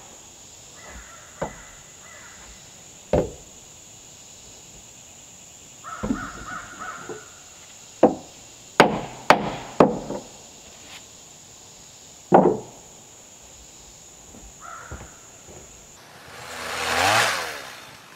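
Hammer blows on wooden window framing: scattered single knocks, then a quick run of four strikes about halfway through, and one more a few seconds later. Near the end a whoosh swells and fades away.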